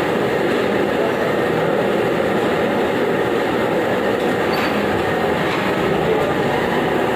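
Treadmill running: a steady mechanical rumble of the motor and moving belt.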